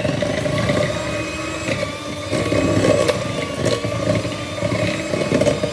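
Black & Decker electric hand mixer motor running steadily, its beaters whipping softened butter in a glass bowl, with a few sharp clicks.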